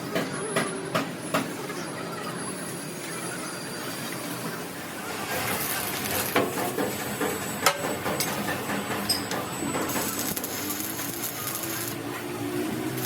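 Steady mechanical hiss and rattle of metalworking with several sharp metal knocks, the loudest about three quarters of the way through.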